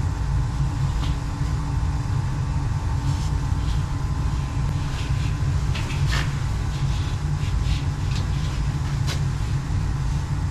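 Slant/Fin Galaxy gas steam boiler firing with a steady low rumble. Scattered light clicks and rustles come from tape being handled over the draft mechanism.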